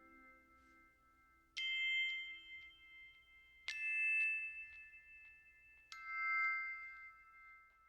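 Closing notes of background music: three struck bell-like chime notes about two seconds apart, each ringing out and fading.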